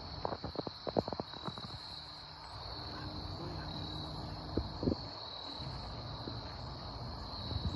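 Steady high insect drone with a quick run of sharp clicks and knocks in the first two seconds and two more about five seconds in.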